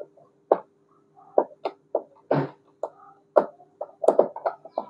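A screwdriver working screws into a plastic TV stand foot: about a dozen irregular clicks and knocks of metal and hard plastic being handled, over a faint steady hum.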